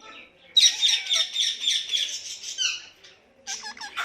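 Pet Psittacula parakeet squawking: a fast run of harsh, high chattering calls lasting about two seconds, then a few short calls near the end.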